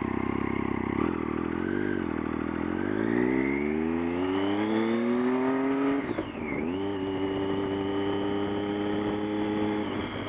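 Vehicle engine running in neutral. It idles, is revved up gradually over a few seconds, dips briefly about six seconds in, then is held steady at higher revs. A thin high whine rises and falls with the engine speed.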